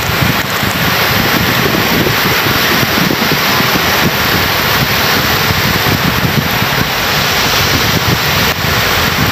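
Surf breaking and washing up a sandy shore, with heavy wind buffeting the microphone in irregular low gusts.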